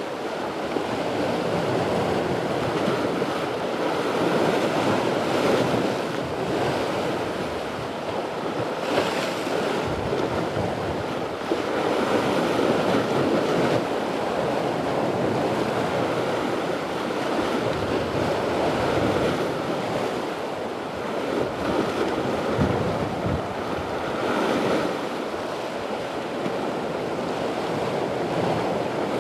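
Sea swell washing and breaking against shore rocks, surging and easing every few seconds, with wind buffeting the microphone.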